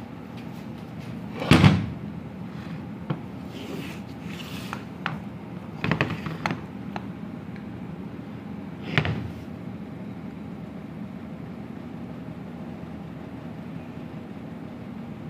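Knocks and clatter of a metal starter motor being handled and set down on a wooden bench: one loud clatter near the start, a quick cluster of smaller knocks midway, and one more knock a few seconds later, over a steady low hum.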